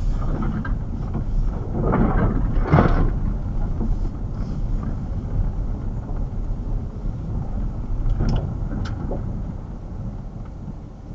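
Chevrolet Camaro crawling up a gravel driveway, heard from inside the cabin: a low engine-and-road rumble with tyres crunching over gravel, and a few louder crunches or bumps along the way. It gets quieter near the end as the car slows almost to a stop.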